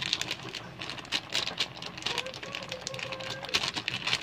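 Coconut milk curry at a rolling boil in a steel pot, bubbles popping in quick irregular clicks.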